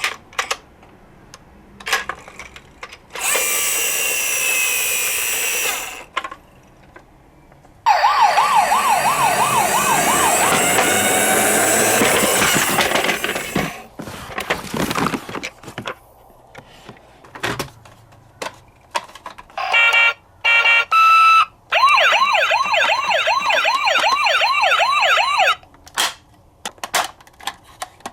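Electronic siren sounds from a toy minicar's sound button: a loud, quickly wavering siren for several seconds, a short two-tone call a little after the middle, then the wavering siren again, with small clicks of the toy being handled in between.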